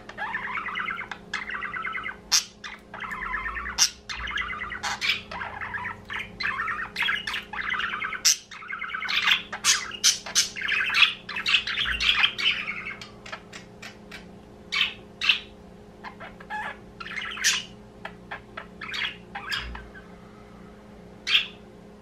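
Budgerigars chattering: a fast, continuous warble of chirps and squawks for about thirteen seconds, then scattered single chirps with short gaps between them.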